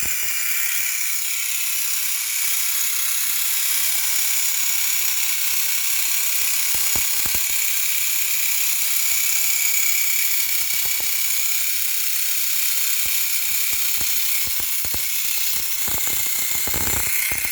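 Small battery-powered electric motor of a NEW-STAR Power Bike ZX-4 toy motorcycle running after being switched on: a steady, high-pitched whir with scattered faint clicks.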